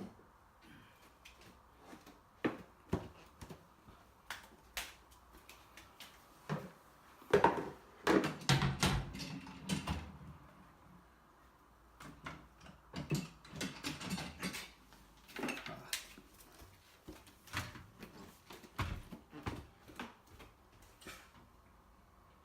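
Irregular knocks, clicks and clatter of household objects being handled and set down, busiest for a few seconds near the middle.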